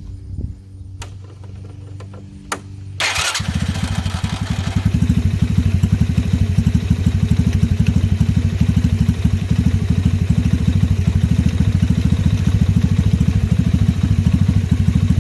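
125cc single-cylinder mini jeep engine starting about three seconds in, after a few clicks, then running steadily with a rapid even pulse and getting a little louder after a couple of seconds. It is running on a newly fitted racing CDI ignition, which is working.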